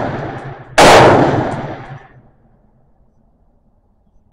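Anderson AR-15 rifle firing 5.56 rounds: a single sharp shot about a second in, its echo dying away over a second or so, then quiet until another shot right at the very end.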